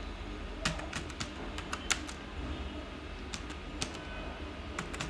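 Computer keyboard keys being typed, a quick irregular clatter of clicks in short runs with a pause of about a second in the middle.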